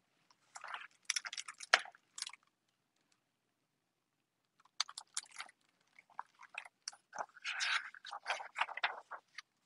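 A hardback picture book's pages being turned and the book handled, with crinkly rustles and small crackles of paper and cover. They come in two spells, about a second in and again from about five seconds in, with a quiet pause between.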